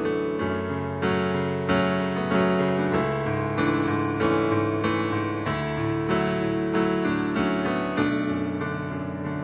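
Slow, gentle keyboard music: sustained piano-like chords with soft notes struck about every three-quarters of a second.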